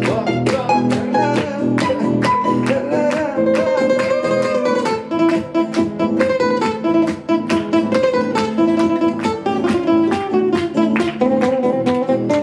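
Instrumental guitar break. A guitar plays a plucked melodic lead with a few sliding notes over chords strummed on a ukulele.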